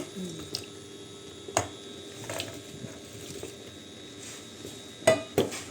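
Cut pear pieces being put into a pot of water: a few soft plops and knocks against the pot, with the loudest pair near the end.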